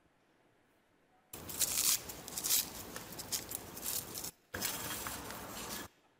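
Dried laver (gim) being cut with kitchen scissors: crisp crackling and snipping, starting about a second and a half in and running about three seconds, then a shorter second stretch near the end.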